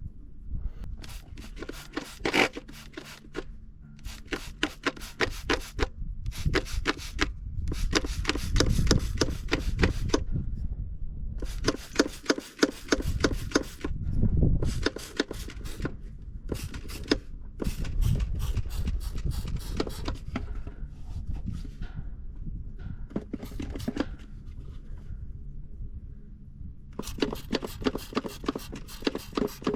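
Ratchet wrench clicking in quick runs of one to three seconds, with short pauses between them, over a low steady rumble.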